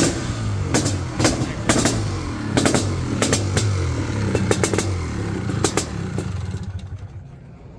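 Honda CR500R's big-bore, liquid-cooled single-cylinder two-stroke engine running, with about ten sharp throttle blips, then quieter near the end.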